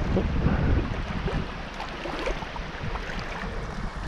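River water running, with wind buffeting the microphone in gusts, heaviest in the first second, and a few small splashes or knocks.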